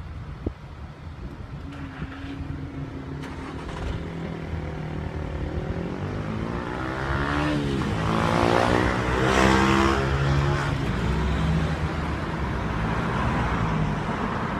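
Road traffic moving off over a level crossing: car engines pulling away, building to a car passing close about halfway through, the loudest moment, then further cars rolling by.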